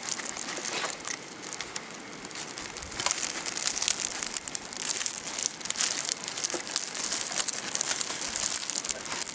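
A skunk rummaging in a garbage can, rustling and crinkling the plastic trash bags, with many small crackles and clicks.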